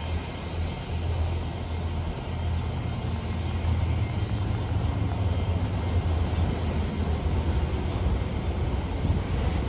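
Freight train's rail cars rolling away along the track: a steady low rumble with wheel and rail noise over it.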